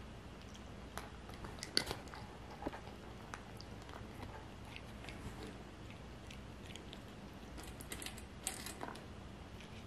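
Cat crunching dry kibble from a stainless steel bowl: faint, irregular crunches and clicks, loudest about two seconds in and again near the end.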